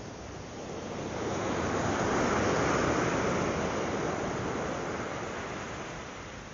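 A wave breaking and washing up the beach: a rush of surf that swells about a second in, peaks, then slowly dies away.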